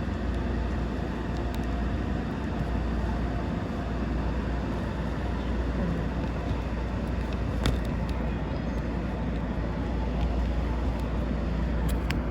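Steady low rumble and hum of an electric commuter train at a station platform, with a few faint clicks.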